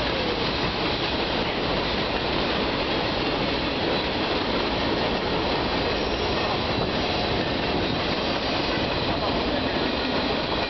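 Freight train's cars rolling past: boxcars, centerbeam flatcars and tank cars, a steady unbroken rumble and rattle of wheels on rail.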